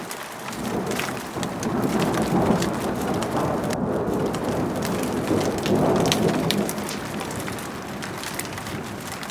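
Heavy rain falling, with sharp drops ticking throughout. The rush of the rain swells louder twice, about two and six seconds in.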